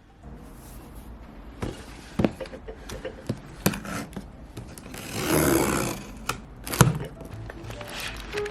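Soft background music with a few sharp knocks of objects being handled and a rustle or hiss lasting about a second, roughly five seconds in.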